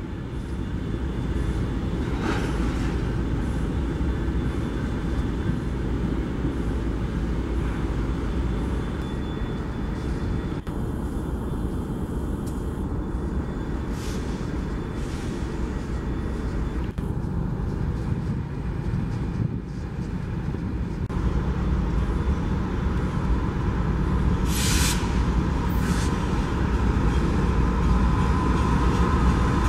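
BNSF diesel locomotives idling with a steady low rumble, with two short hisses about three-quarters of the way through. Near the end a BNSF diesel freight train approaches and grows louder.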